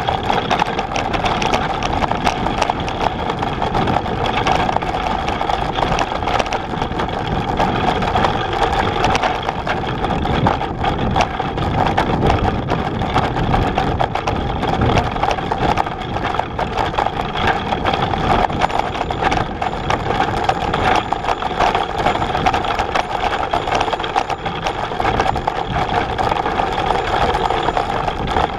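A Bullitt cargo bike with a Shimano E6000 mid-drive motor riding over a rough gravel track: continuous rattling and crunching from the frame and tyres, with a steady mechanical whir underneath.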